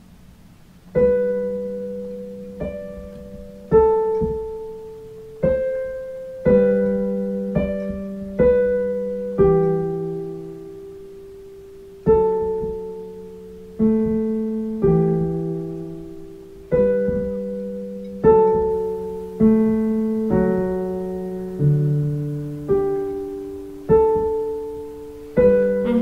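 Digital piano playing slowly: chords struck one at a time, about one every second or so, each left to ring and die away, starting about a second in with a short pause near the middle.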